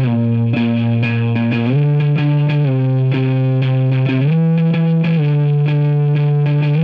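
Distorted electric guitar through effects playing sustained chords over a regular pulse, moving to a new chord about two seconds in and again just past four seconds.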